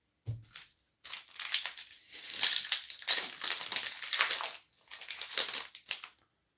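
Foil baseball card pack wrapper crinkling and being crushed in the hand: a run of uneven crackles lasting several seconds, loudest in the middle, after a soft knock at the start.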